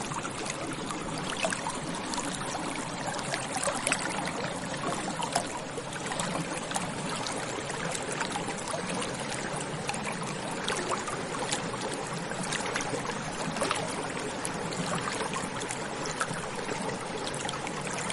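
A small stream flowing steadily, with water trickling and many small splashes.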